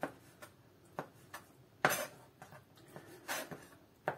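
Chef's knife chopping through raw trout fillet onto a plastic cutting board: a run of irregular sharp taps, about nine in all, the loudest about two seconds in.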